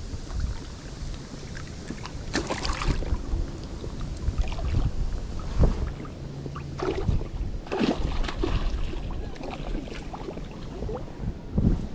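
Wind buffeting the microphone over choppy river water lapping and slapping against a float tube, with a few louder splashes, one about a fifth of the way in and another about two-thirds through.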